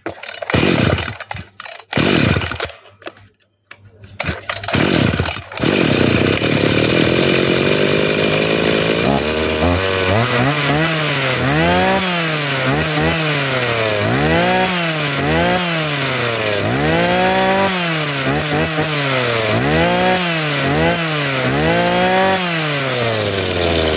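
Komatsu 24cc two-stroke brush-cutter engine firing in a few short bursts over the first five seconds, then catching and running. From about nine seconds it is revved up and let back down over and over, about ten times. The seller finds the exhaust a little restricted and puts it down to a partly blocked muffler.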